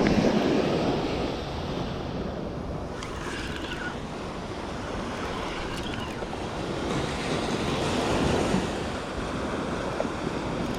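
Ocean surf washing up the beach, with wind buffeting the microphone; loudest at the start, easing off, then building again with another wave after about seven seconds.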